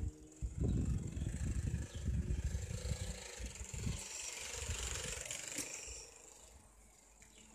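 Playing cards taped to a bicycle frame flapping against the turning spokes, a rapid low buzz meant to imitate a motorbike, fading away over the last few seconds as the bike rides off.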